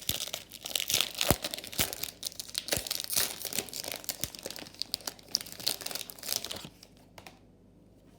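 Foil wrapper of a Topps baseball-card jumbo pack being torn open and crinkled by hand, a dense run of sharp crackles that stops about seven seconds in.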